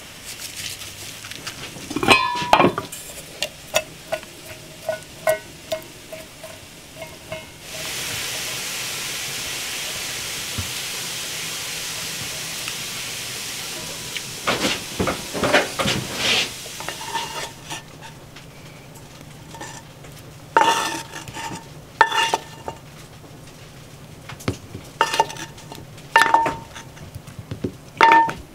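Kitchen cooking sounds: a pan sizzling steadily for about six seconds in the middle, and a metal utensil clinking and scraping against a pan and a ceramic plate in short bursts, each clink with a brief ring. Near the end a fork clinks while stirring a salad of chicken and fried peppers on a plate.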